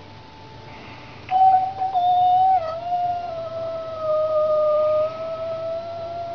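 A cat yowling: one long, drawn-out wail that starts about a second in and is held with a slight waver in pitch. It is the threat yowl of a cat facing off with another cat.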